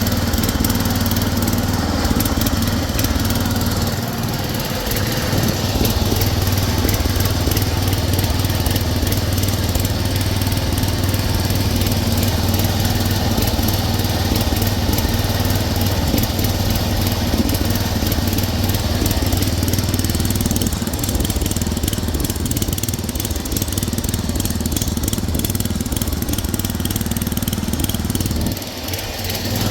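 Converted Craftsman garden tractor's engine running steadily while riding, with brief dips in level about four seconds in and again near the end.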